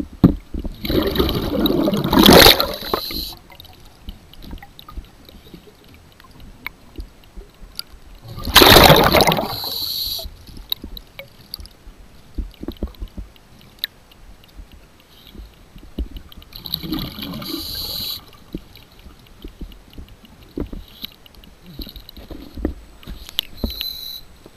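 A diver breathing through a regulator underwater: three loud breaths about seven seconds apart, each a rush of bubbling and hiss, with light scattered clicking between them.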